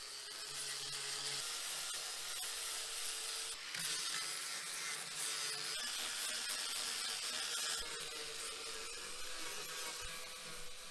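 Small handheld power tool running steadily while it grinds against fig wood, stripping bark and rotten, ant-eaten wood.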